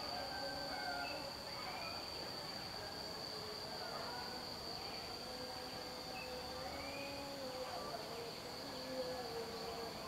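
Insect buzzing steadily at one high pitch, with a few faint short chirps and low wavering tones underneath.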